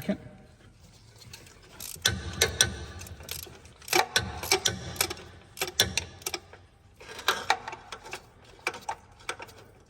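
A long-handled flex-head 3/8-drive ratchet clicking in several short bursts of rapid clicks as it backs out the hex-head coolant plug in the engine block.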